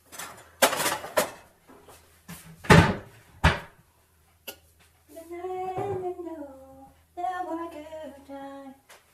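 A few knocks and rustling handling sounds in the first three seconds, the loudest about three seconds in. Then a woman hums a tune in long held notes.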